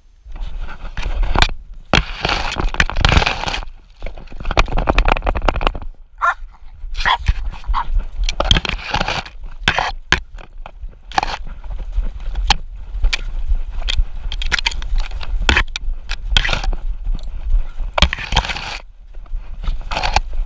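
Camera strapped to a dog, rubbing and knocking on its mount as the dog moves through leaf litter and brush: irregular scraping, crackling and sharp knocks over a steady low rumble.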